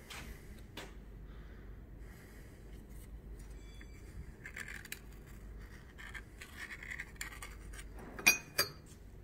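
Ballpoint pen scratching around a 45 mm carburettor trumpet held against an alloy inlet-manifold port to mark the outline for port matching, with light handling clicks and scrapes. Near the end come two sharp clinks a fraction of a second apart, the loudest sounds.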